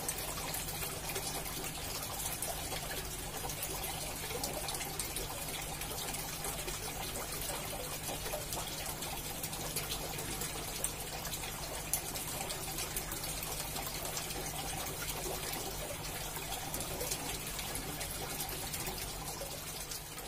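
Aquarium airstone bubbling steadily, with water trickling and splashing at the surface, over a steady low hum.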